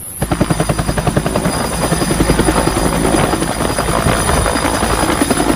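Bell UH-1 Huey military helicopter lifting off and flying low, its rotor beating in a rapid, even chop over a steady low engine rumble.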